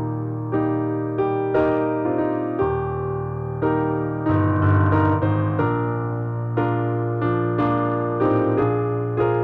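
Slow piano music: chords struck about once a second over held low bass notes.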